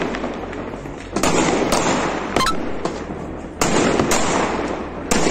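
Fireworks and firecrackers going off: about half a dozen sharp bangs at uneven intervals, each trailing off in a long echoing rumble, over a continuous crackle of distant explosions.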